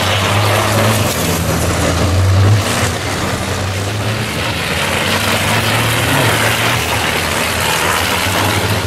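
MAN racing truck diesel engines running on track: a steady low engine note under a wide hiss of noise, dipping a little in loudness about two and a half seconds in.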